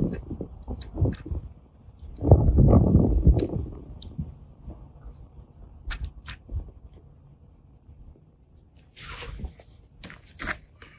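Handling noise as an ATN Thor 4 thermal scope is fitted into its mount on a rifle: scattered sharp clicks and light knocks of metal parts, with rustling of movement on a canvas mat over dry stubble. A louder low rumbling rustle comes about two seconds in.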